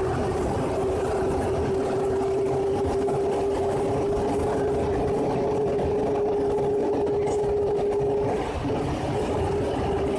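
Paris Métro MP89CA rubber-tyred train running at speed through a tunnel, heard from inside: a steady motor whine over the rumble of the tyres. The whine breaks off briefly about eight seconds in, then returns.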